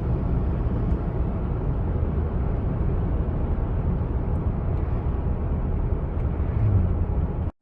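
Steady road and engine noise of a moving car heard from inside the cabin, a low rumble with no distinct events, dropping out for an instant at the very end.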